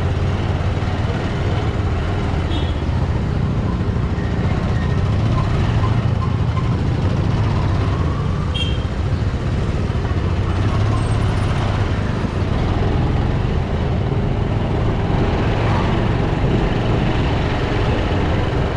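Bajaj Pulsar 200's single-cylinder engine running steadily under way, with road and wind noise, in busy street traffic.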